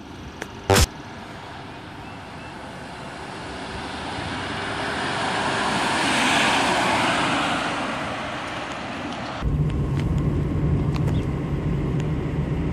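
A sharp thump, then a car passing by on the road, its noise swelling and fading over several seconds. It cuts suddenly to the steady low drone of a car's engine and road noise heard from inside the cabin while driving.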